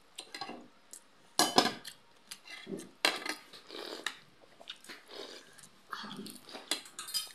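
Loud slurping and gulping of soup broth from a bowl tipped to the mouth, in irregular bursts with the strongest near the start and a few seconds in. Spoons click and scrape on plates in between.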